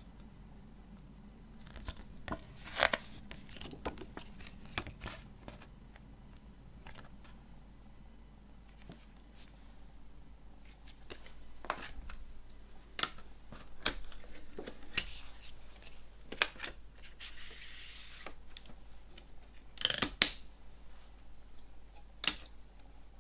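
CD packaging and its paper booklet being handled: scattered sharp clicks and taps of paper and plastic, with a short rustle in the second half and a louder double click near the end.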